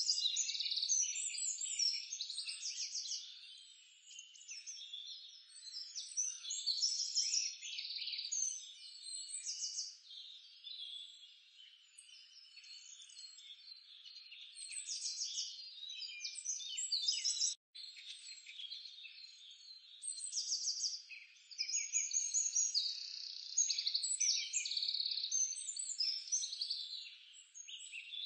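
Outdoor nature chorus of many high-pitched bird chirps and rapid trilling calls, dense and uneven throughout. It cuts out for an instant about two-thirds of the way through.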